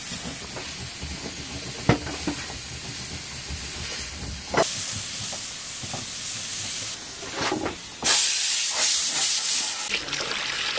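A stone pestle knocks and grinds on a stone mortar, with one sharp knock about two seconds in. Then steam hisses from a pressure cooker on a wood fire. The hiss starts suddenly a little before halfway and is loudest near the end.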